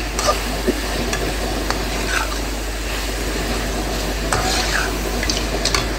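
Chicken frying in oil in a pan, sizzling steadily, while a spoon stirs and mixes it, with a few scattered clicks and scrapes against the pan.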